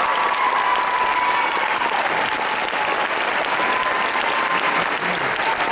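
Audience applauding steadily, with a long high held call rising over the clapping in the first two seconds.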